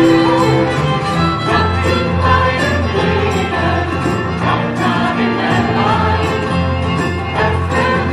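Live acoustic band playing a song: acoustic guitars, violin and keyboard over held bass notes, with voices singing.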